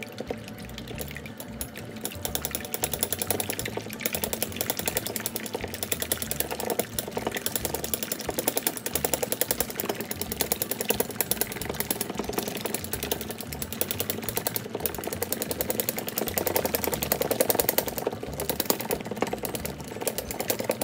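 Chopsticks rapidly beating egg whites in a stainless steel bowl: a fast, even run of clicks as the tips strike the bottom of the bowl, breaking up the whites. The beating picks up and gets louder about two seconds in.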